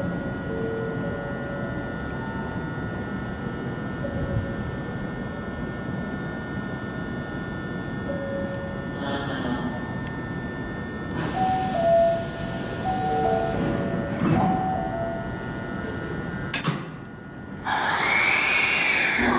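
Hankyu 1300-series commuter train standing at a station platform before departure, its onboard equipment giving a steady high whine. Short stepped chime-like tones sound in the second half. Near the end there is a click, then a louder rush of noise carrying a tone that rises and falls.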